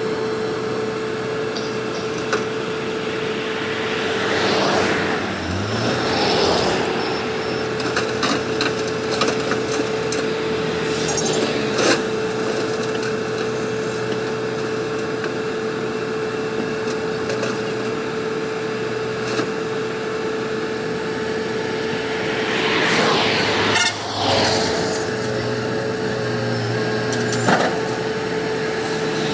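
Volvo EC210B crawler excavator's diesel engine running steadily under load, with a constant whine held throughout. Two louder swells rise and fall, about five seconds in and again near the end.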